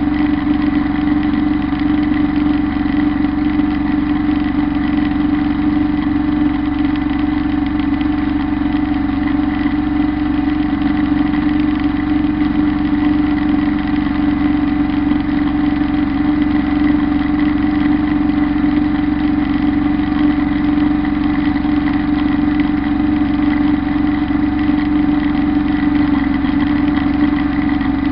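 Kubota Bulltra B1-17 compact tractor's three-cylinder diesel running steadily under load, driving a Zanon rotary drum mower through tall grass. The engine and spinning mower make one even, unbroken drone.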